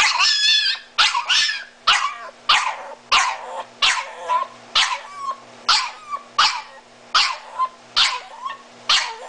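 Miniature Italian Greyhound giving a string of high-pitched yelping calls, about one and a half a second, each falling in pitch, the first longer and wavering; the calls are the dog's scream for its "mommy", heard by its owner as the dog saying "mommy, mommy".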